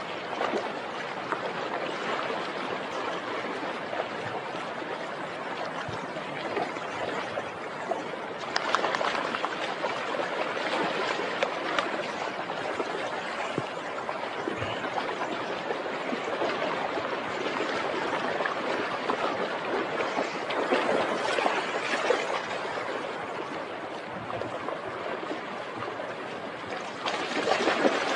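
Shallow river water rushing over rocks, with louder splashing at times as a dog wades and paws through it.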